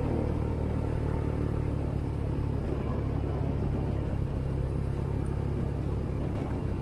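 Steady low rumble of a moving vehicle travelling at an even speed, with no change in pitch.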